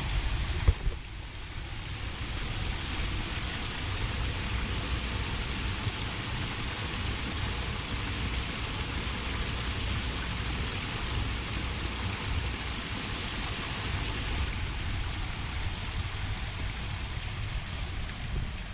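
Steady rushing of a small waterfall, its water spreading over a broad rock face, with a brief knock a little under a second in.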